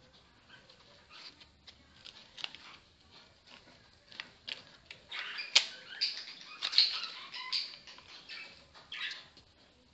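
A hand rubbing and squeezing flour into a soft buttery dough in a glazed earthenware bowl: soft rustling, patting and scraping against the bowl, busier and louder about five seconds in.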